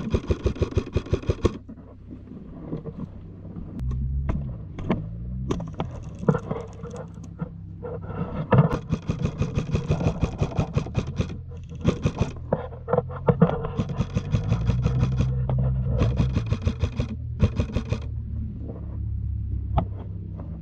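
Airsoft rifle shooting several bursts of rapid shots, several a second, with short pauses between bursts, over a steady low rumble.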